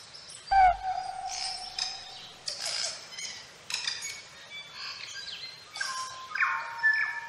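Birdsong: many overlapping whistled calls and chirps, some sliding in pitch, with a low thud as the loudest call begins about half a second in.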